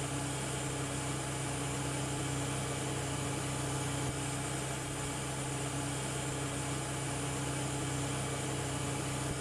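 A steady low hum, one unchanging note with a hiss above it.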